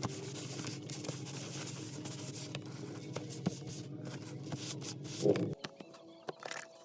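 Soft, irregular scrubbing of a cloth or dauber rubbing finish onto veg-tan leather, over a steady low hum that cuts off abruptly about five and a half seconds in.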